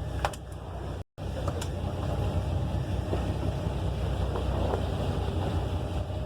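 Fishing boat's engine running steadily as a low hum, with wind noise; the sound drops out completely for a moment about a second in.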